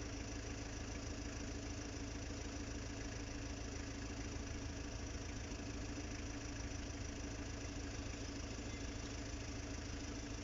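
Steady low mechanical hum with a constant droning tone, unchanging throughout and with no clicks or knocks.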